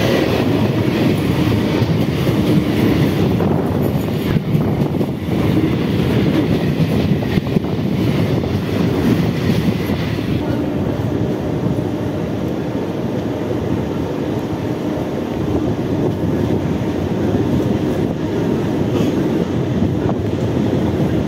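Mumbai suburban EMU local train running at speed, heard from its open doorway: a steady rumble of wheels on rail with clickety-clack from the rail joints. For about the first ten seconds a train passing on the adjacent track adds a brighter, louder rush, which ends about ten seconds in.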